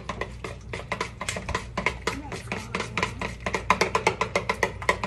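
A utensil whisking sauce in a plastic mixing bowl, clicking rapidly against the bowl at about seven or eight strokes a second.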